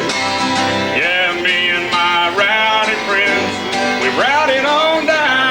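Live country band playing an instrumental passage after the sung line, a lead instrument playing sliding, bending notes over guitar backing.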